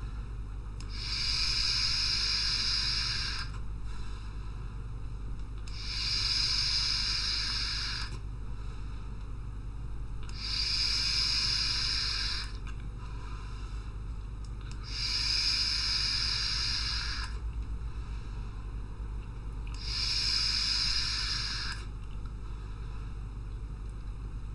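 Vaping on an EHPro Bachelor X single-coil rebuildable tank atomizer fired at 55 watts: five hissing puffs of air and vapour, each about two and a half seconds long, a couple of seconds apart.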